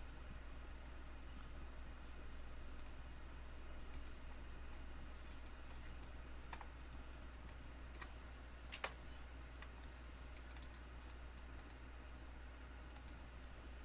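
Irregular, sparse clicking of a computer keyboard and mouse, a dozen or so separate taps, over a faint low steady hum.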